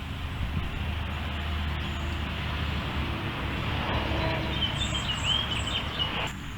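Steady low rumble of road traffic, with a bird chirping a few times near the end.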